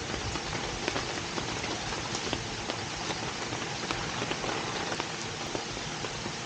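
Steady rain, with many individual drops ticking sharply against a surface over an even hiss.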